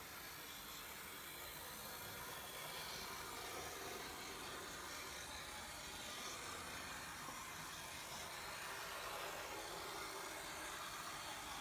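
Faint, steady whir and hiss of an N scale Shay model locomotive running on track, driven by its small Searails PowerMAX power truck motor.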